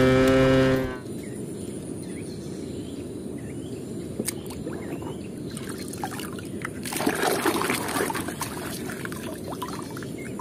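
A cartoon tractor's cow-like moo ends abruptly about a second in. Then muddy water sloshes and trickles as a hand moves a toy car through it, with small splashes, a little louder around seven seconds in.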